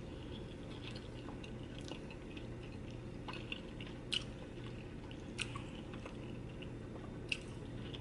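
Close-up chewing of a crisp cheese quesadilla: quiet mouth sounds with a few sharp crunches scattered through.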